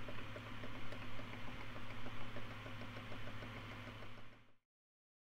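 Upturned ink refill bottle gurgling as it drains into an Epson ET-4800 printer's ink tank: a fast, even run of small bubbling blips over a steady low hum. It cuts off abruptly near the end.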